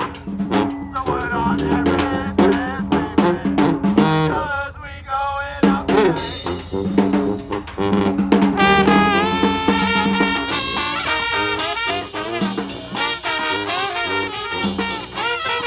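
Live brass band playing horns over drums. The band thins out briefly about four seconds in, then the horns come back in full about halfway through.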